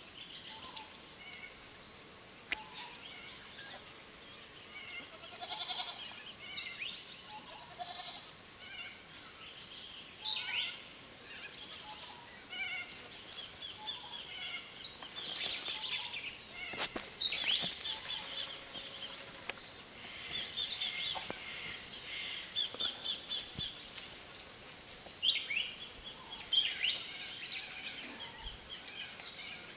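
Feral goats bleating now and then amid many birds chirping and trilling, with quick runs of repeated high notes throughout.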